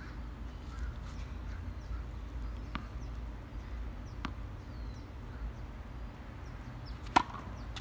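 Two light ticks of a tennis ball bounced on a hard court, then a single loud, sharp pop of a racket striking the ball on a serve about seven seconds in.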